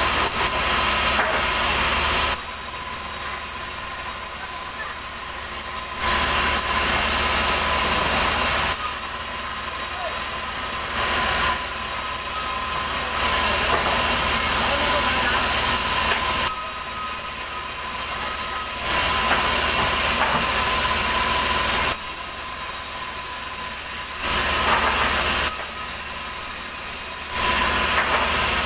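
Sawmill saw running with a steady whine, repeatedly biting into a large ulin (Bornean ironwood) log. About five times the sound swells into a louder, hissing cut for a few seconds, then drops back to the running whine.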